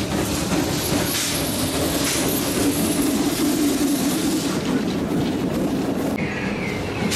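Steam-hauled coal train's wagons rolling past close by, with steady wheel-on-rail clatter. About six seconds in the sound changes to a more distant train with a higher-pitched wavering squeal.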